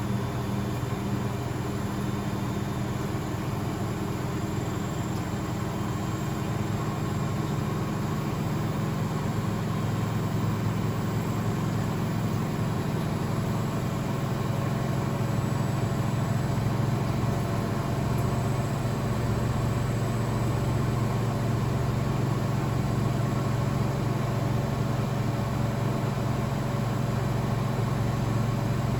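Blomberg WAF 7442 SL washing machine running with a steady motor hum. The hum grows slightly louder about halfway through.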